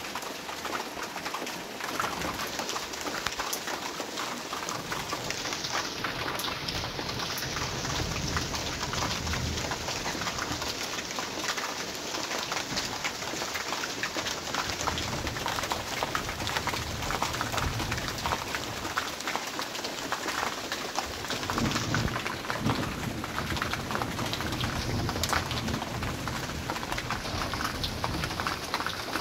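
Steady rain falling: a dense patter of drops, with a low rumble in the later part.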